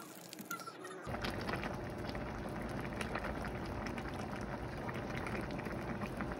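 Jjamppong (spicy seafood noodle soup) boiling in a metal pot on a ceramic cooktop, a steady dense bubbling and crackling that starts about a second in, as the soup is brought back up to the boil.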